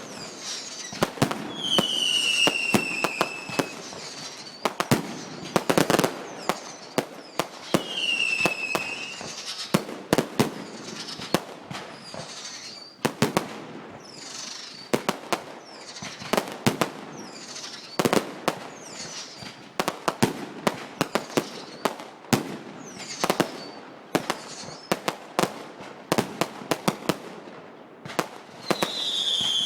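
Fireworks display: a rapid, uneven string of sharp bangs and crackles from bursting shells. Three times a whistle sounds briefly and falls in pitch: near the start, about a third of the way in, and at the very end.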